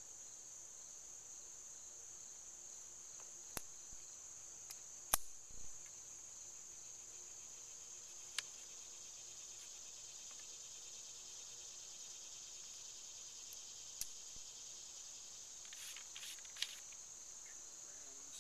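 A steady, high-pitched chorus of insects, with a few sharp clicks and taps from handling a flintlock muzzleloader as a patched ball is seated at the muzzle. The loudest click comes about five seconds in.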